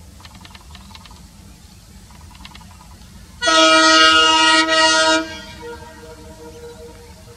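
Locomotive air horn sounding one long loud blast of about two seconds, with a brief break near its end, then a fainter lingering tone that dies away.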